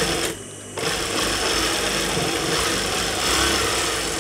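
Industrial sewing machine stitching through a folded strip of cloth: a short burst, a brief stop, then one steady run of about three seconds.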